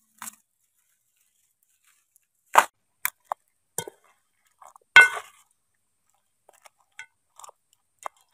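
Scattered clinks and knocks of a glass jar and utensil against a metal cooking pot. Two strikes stand out, about two and a half and five seconds in, and the second rings briefly.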